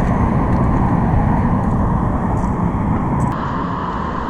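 A loud, steady rushing rumble with no distinct events.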